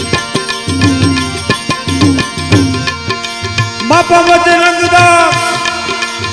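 Instrumental interlude of a Gujarati devotional bhajan: hand drums play a steady rhythmic pattern, with low strokes that slide in pitch. About four seconds in, a sustained melodic instrument comes in over the drums with long held notes.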